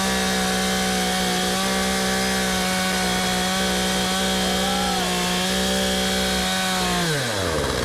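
Chainsaw in an Alaskan chainsaw mill held at full throttle, ripping along a pecan log at one steady high pitch. About seven seconds in, the throttle is released and the engine drops back to idle.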